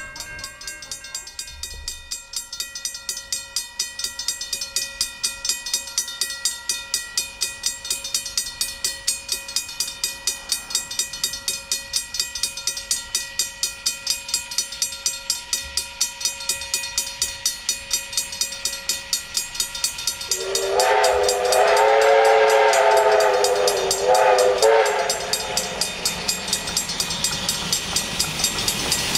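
Ab-class 4-6-2 steam locomotive working, its exhaust chuffing in an even beat. About two-thirds of the way in, its steam whistle sounds for roughly five seconds, broken briefly near the end.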